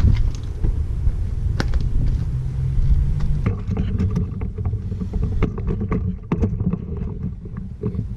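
Power door lock and power window being tested after a wiring repair: a short motor hum about three seconds in, then a run of sharp clicks and clunks, over a steady low rumble. The locks and window are working again.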